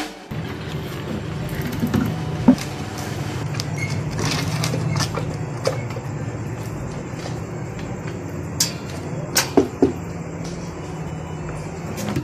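A steady low hum, with a few sharp clicks and knocks: one about two and a half seconds in and a cluster of three or four near the three-quarter mark.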